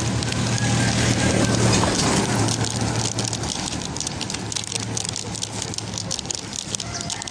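A small truck drives past and moves away up the road, its engine hum loudest at first and fading over the following seconds, with light crackling on the microphone in the second half.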